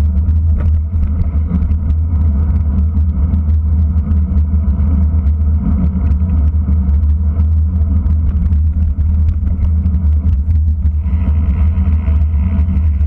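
Wind buffeting the microphone of a bike-mounted camera at racing speed: a loud, steady low rumble, with faint scattered clicks.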